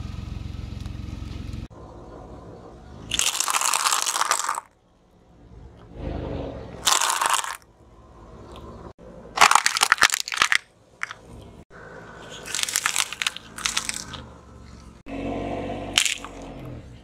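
Objects crushed under a slowly rolling car tyre: several separate bursts of crunching and cracking, each lasting about a second, with a low rumble in the first couple of seconds.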